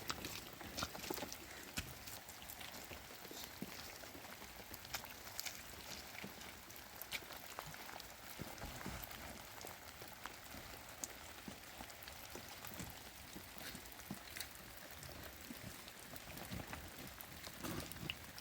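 Steady rain, with many separate drops tapping sharply close by.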